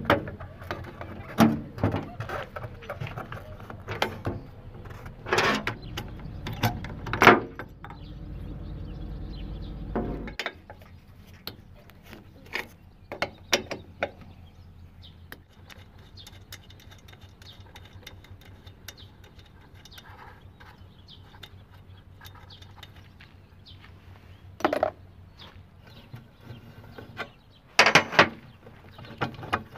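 Hand tools clicking and knocking against metal scooter parts as nuts and bolts on a Honda Dio's rear wheel and engine are worked loose. The clicks come in irregular runs. A low steady hum a few seconds in cuts off suddenly.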